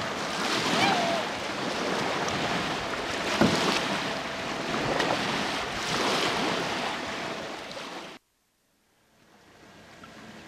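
Loud, rough wind buffeting the camcorder microphone, mixed with lake water lapping. It cuts off abruptly about eight seconds in, leaving a much quieter steady hiss.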